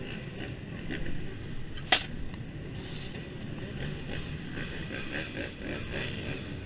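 2001 Husqvarna CR125's single-cylinder two-stroke engine idling, a rough, muffled running noise, with one sharp click about two seconds in.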